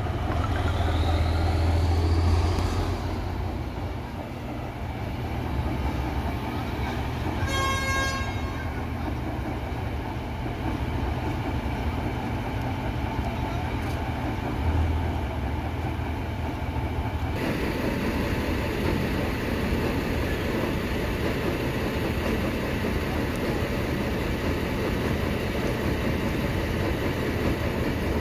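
Diesel multiple unit of Sri Lanka Railways' S9/S10 class running with a steady low rumble, with one short horn toot about eight seconds in. The noise grows louder and rougher a little past halfway.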